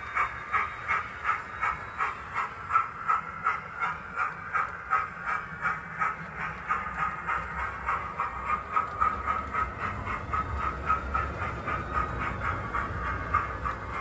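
Hornby TTS sound decoder in an OO gauge model locomotive playing its locomotive sound through the model's small speaker as the train runs, an even beat of about three a second.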